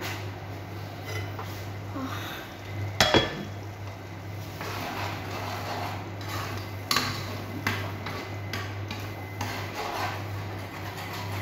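Cookware clatter: a utensil stirring and scraping in a pan on the stove, with scattered light knocks and one sharp clink about three seconds in. A steady low hum runs underneath.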